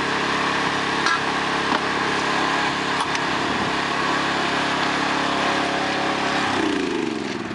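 Small engine running steadily, then slowing and dying away near the end, its pitch falling.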